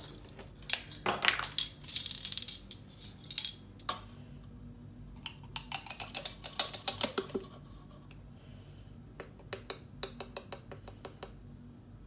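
A set of metal measuring spoons on a ring jangling and clinking, and a spice jar being handled and tapped as ground cinnamon is shaken out into a spoon. The clicks and rattles come in three bursts, the busiest about a second in.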